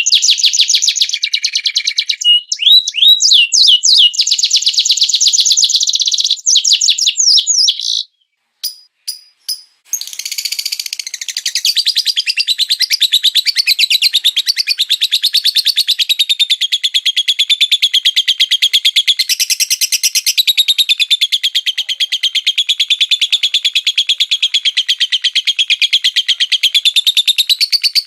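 Songbird masteran (tutor) recording: a small bird's rapid, high-pitched chirps and sweeping notes, a short gap with a few clicks about eight seconds in, then a long fast trill that wavers in pitch.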